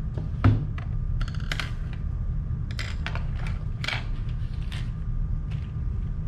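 Colored pencils clicking and rattling against each other as they are sorted through and picked out, with one louder knock about half a second in. A steady low hum runs underneath.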